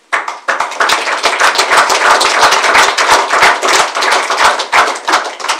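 Audience applauding: a loud run of claps that starts suddenly and dies away after about five and a half seconds.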